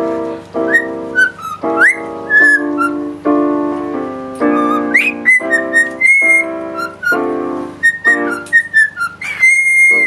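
Cockatiel whistling short notes and quick upward slides along with chords played on a digital piano, finishing on one long held whistle near the end.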